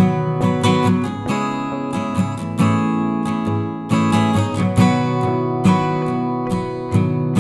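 Music: strummed acoustic guitar chords with a regular beat.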